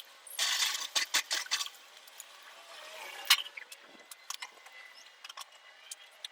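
Light metallic clinks and rattles: a quick cluster of them from about half a second in to nearly two seconds, a sharp single clink a little after three seconds, and scattered faint ticks after that. No engine is running.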